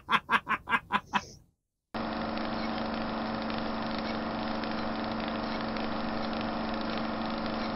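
A man's rhythmic laughter trailing off in the first second and a half. After a short silence, a steady engine-like drone with a low hum starts and runs on unchanged.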